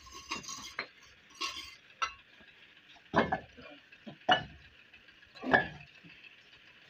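Bricklaying: a mason's steel trowel scraping and clinking on brick and mortar. Then come three heavy knocks about a second apart as bricks are worked into the wall.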